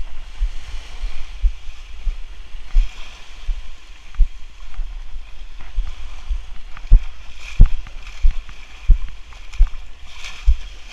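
A kayak being paddled out through small breaking surf: water splashing and sloshing against the hull and paddle. Repeated low thumps and a few sharp knocks run through it.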